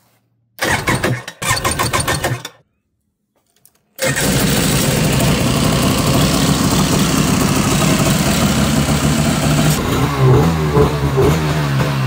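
Yamaha Superjet 650's two-stroke twin being cranked over by its electric starter in two short bursts, then catching about four seconds in and running steadily. It runs now on a newly fitted CDI, which shows that the old CDI was the cause of the no-spark no-start.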